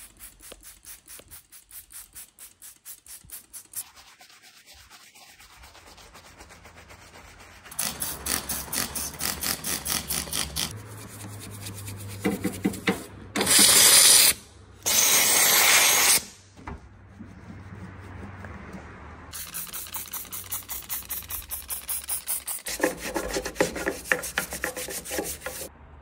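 Brush scrubbing over car door trim in runs of quick back-and-forth strokes, about four a second. Near the middle a steam cleaner gives two loud hissing blasts, each about a second long.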